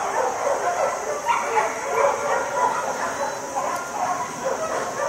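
A dog barking over and over in quick succession, with no real pause.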